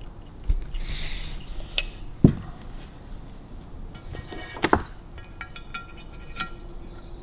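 Sharp metallic clicks and clinks of small engine parts and an oil can being handled over a Harley-Davidson WLC crankcase half during assembly. The sharpest click comes about two seconds in, with a few lighter ones after it.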